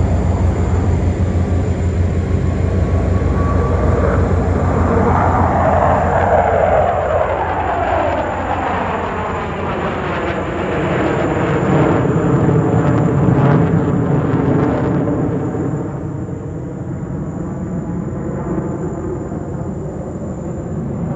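Jet engines of a six-ship formation of twin-engine Sukhoi Flanker-type fighters flying past, a loud steady roar. A whine falls in pitch between about four and twelve seconds in as they go by, and the roar eases slightly after that.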